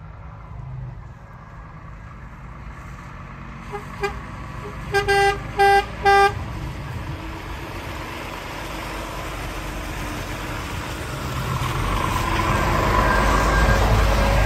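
A Scania semi-truck's horn sounds two faint short toots and then three loud toots about five to six seconds in, a farewell honk as it leaves. Its diesel engine and tyres then grow steadily louder as it drives up close.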